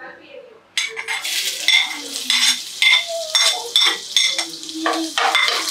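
Chopped ginger and garlic hitting hot oil in a kadai and sizzling loudly, starting suddenly about a second in, with a spoon scraping and clinking against a plate as the pieces are pushed into the pan.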